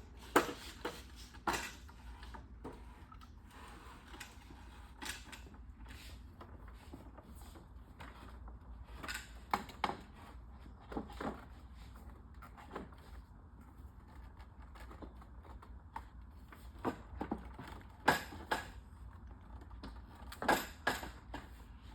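Scattered knocks and clacks as playpen panel sections are handled and fitted against the posts, a dozen or so irregular hits with the loudest near the start and again past the middle, over a low steady hum.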